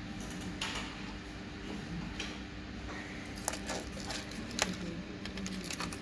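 Faint, scattered plastic clicks of gate remote control buttons being pressed and the two remotes being handled, over a low steady hum.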